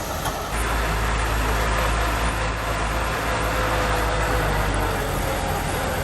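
Diesel engine of heavy earthmoving machinery running steadily under load, with a thin steady whine running through it. The low rumble grows louder about half a second in.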